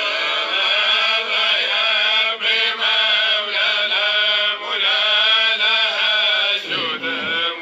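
A solo voice chanting in long, drawn-out notes that waver and bend in pitch, with a short break near the end.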